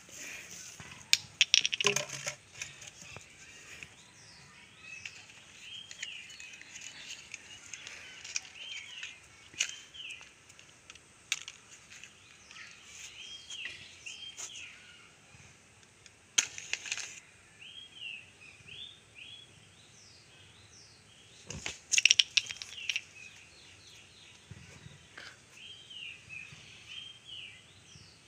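A bird calling over and over in short rising-and-falling chirps. Sharp clicks and knocks break in, clustered near the start, once in the middle and again a few seconds later.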